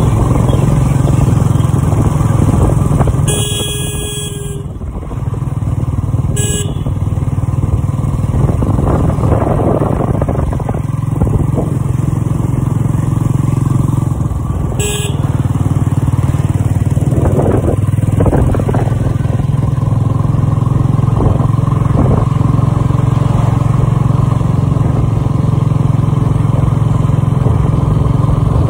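Royal Enfield Bullet 350 single-cylinder motorcycle running steadily under way, heard from the pillion. A vehicle horn sounds once for over a second about three seconds in, then gives two short beeps later.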